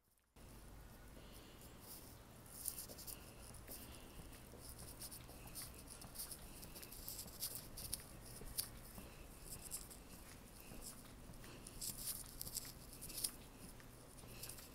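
Quiet street ambience heard while walking: a faint, steady low hum with scattered light ticks and scuffs.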